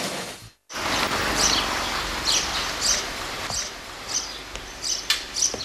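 Music cuts off about half a second in, followed by outdoor ambience: small birds chirping repeatedly over a steady background hiss, with a few footsteps on stone steps.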